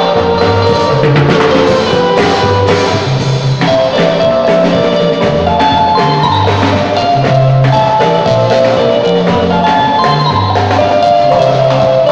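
Live band playing an instrumental passage: an electric guitar picks a melody over a bass line and percussion, with no singing.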